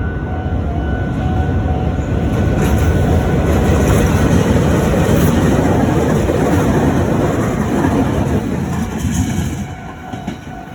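Meitetsu local electric train passing a level crossing close by, its running noise building to a loud rush and dropping away sharply near the end. The crossing's warning bell rings steadily throughout.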